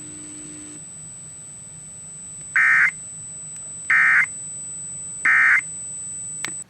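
Emergency Alert System end-of-message data tones: three short, identical buzzy bursts about 1.4 seconds apart, marking the end of a National Weather Service severe thunderstorm warning broadcast.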